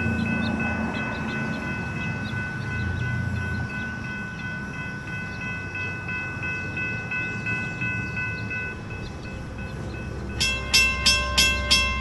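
Railroad crossing bell ringing steadily as the gates come down, over the low rumble of an approaching diesel freight locomotive. About a second and a half before the end, a louder, faster series of sharp ringing strikes begins, about three a second.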